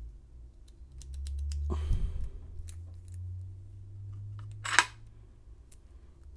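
Small metal padlock parts clicking and rubbing as the Master Lock 930's cylinder is fitted back into its body, with a longer rub about two seconds in and a short, sharp louder click near the five-second mark.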